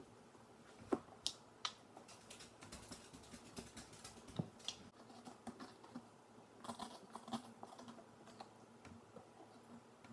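Quiet, irregular small clicks, taps and scrapes of pumpkin pulp and seeds being pulled out of a pumpkin by hand and dropped into a plastic bowl, with a few sharper knocks.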